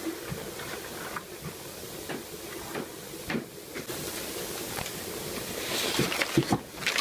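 Things being handled: scattered light clicks and knocks over a steady hiss, with crinkly rustling getting busier near the end.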